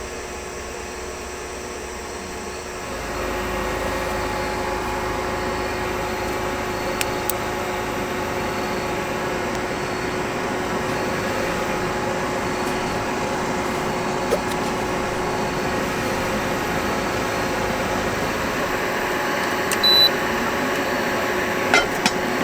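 Induction cooktop running, its cooling fan and coil giving a steady hum with fixed tones that grows louder about three seconds in. A short high beep comes near the end, followed by a few light clicks.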